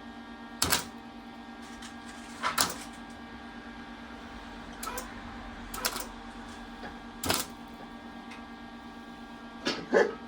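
Welder striking short bursts of arc, about six quick crackles each lasting a fraction of a second, as in tack welding, over a steady electrical hum.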